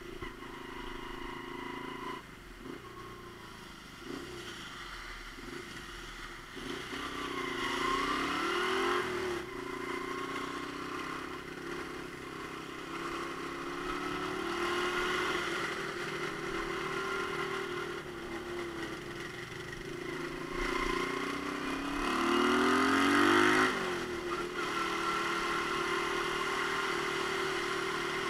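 Romet Ogar Caffe 125 motorcycle engine running under way, its pitch rising as it accelerates about seven seconds in and again about twenty-one seconds in, each rise ending in a sudden drop; the second climb is the loudest.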